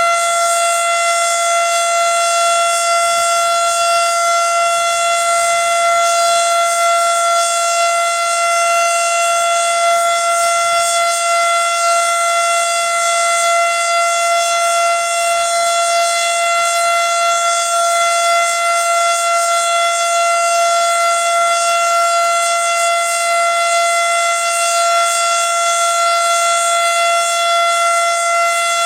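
Federal Signal Model 7 outdoor tornado warning siren sounding the steady alert signal during a monthly test, holding one constant pitch without rising or falling.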